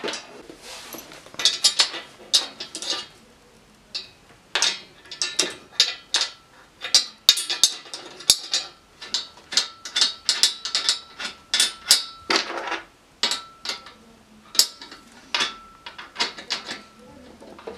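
Irregular sharp metallic clicks and clinks as bolts are fitted into the steel frame rails of an IKEA FREDDE desk and an Allen key turns and taps against them.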